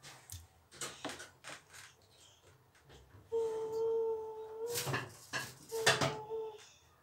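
Faint clicks and taps of a silicone pastry brush against the bowl and baking dish while egg yolk is brushed onto rolled lavash, with a couple of sharper knocks. A steady held note sounds twice: once for about a second and a half starting a little past the middle, and again briefly near the end.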